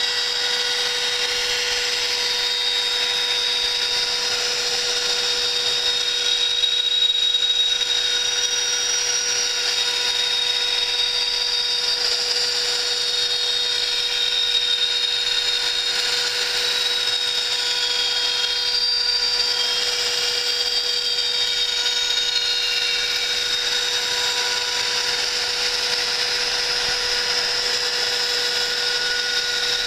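Home-built CNC milling machine cutting an aluminium plate with a small end mill: the spindle runs at a constant pitch over the steady cutting noise, and some higher tones glide up and down now and then as the machine moves.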